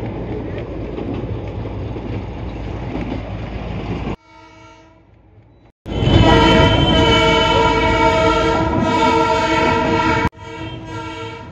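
Darjeeling Himalayan Railway narrow-gauge train running with a steady rumble for about four seconds. After an abrupt break its horn sounds, faint at first, then loud and steady for about four seconds before cutting off suddenly.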